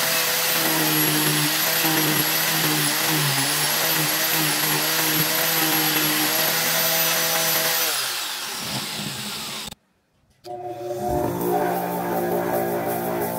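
Handheld power tool with a sanding disc running steadily as a wood block is sanded against it, its pitch sagging briefly about three seconds in, then winding down with a falling whine about eight seconds in. After a brief silence, guitar music starts.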